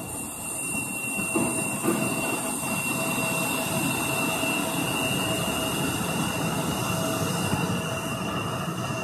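Embraer E175 jet's twin turbofan engines at taxi power: a steady jet whine with a high tone over a broad rumble. It grows louder over the first two seconds as the jet turns.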